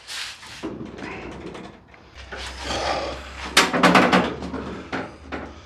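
The steel door of a 1953 Ford being swung shut gently and latched: rustling and scraping, then a quick run of metallic clicks and clunks about three and a half seconds in as the latch catches. The door closes without hitting and sliding up on the striker, a sign that the hinge adjustment has fixed its alignment.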